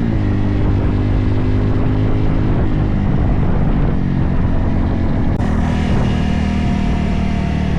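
Motorcycle engine running while riding, its pitch dipping as the throttle eases and then holding steady, with a constant rush of wind and road noise.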